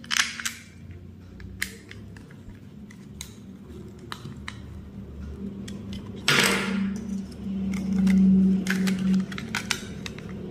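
White plastic bulb holder being handled and its parts twisted together: light plastic clicks and taps, with a louder scraping rasp about six seconds in. A low hum runs underneath and swells around eight seconds.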